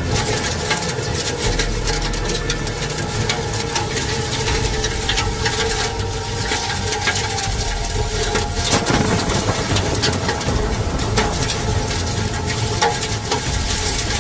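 Hail falling hard: a dense, continuous patter of countless small ice pellets striking, with one louder crack about nine seconds in.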